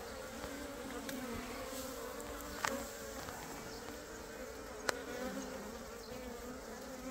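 A swarm of Asian honeybees (Korean native bees) buzzing as it settles into a cluster during swarming: a steady hum, slightly wavering in pitch. Two sharp clicks stand out in the middle, a couple of seconds apart.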